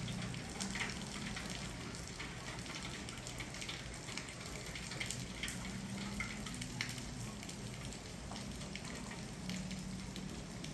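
Steady rain falling, an even hiss with many individual drops ticking and pattering on hard surfaces. A low steady hum runs underneath.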